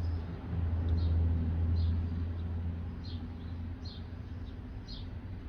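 A steady low rumble, loudest in the first two seconds, with a small bird chirping about once a second over it.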